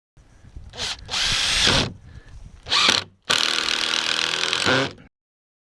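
Power drill driving screws in four runs, whining: two short ones and two longer ones, the last nearly two seconds long.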